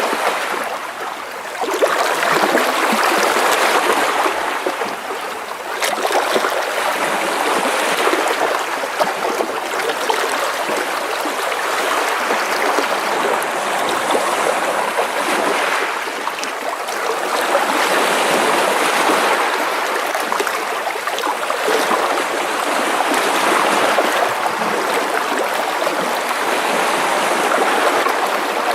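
Small sea waves splashing and washing against rocks close by, a continuous sloshing that swells and eases every few seconds.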